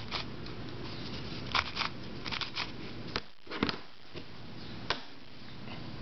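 A few short plastic clicks and knocks as a hand-cut truncated Rubik's cube is turned and handled, then set aside, over a steady faint room hiss.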